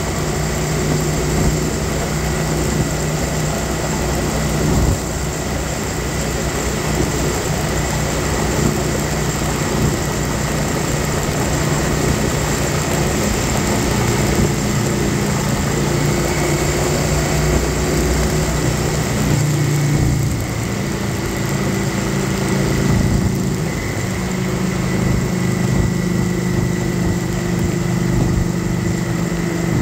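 Kawasaki Vulcan 900 Classic SE's V-twin engine running at road speed, with wind noise over the microphone. The engine note dips briefly and shifts pitch about twenty seconds in.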